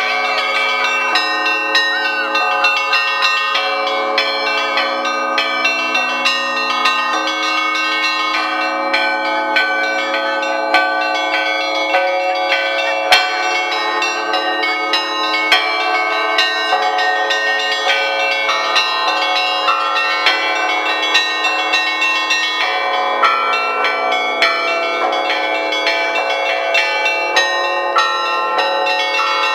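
Russian Orthodox festive bell ringing: a monk pulls the ropes of a set of many bells of different sizes, sounding a rapid, continuous joyful peal. Quick strokes on the small bells chime over the longer ringing of the larger ones.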